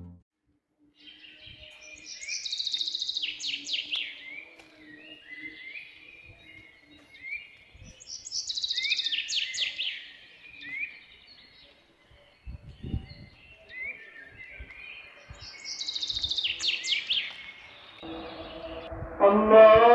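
Birds singing and chirping: a songbird repeats a short, high, falling phrase three times, about six seconds apart, with scattered chirps in between. Music fades in near the end.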